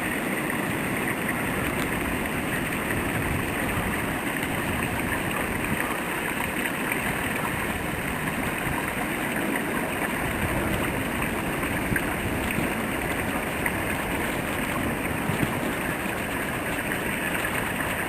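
Steady rushing wind of a heavy snowstorm, with a few faint ticks.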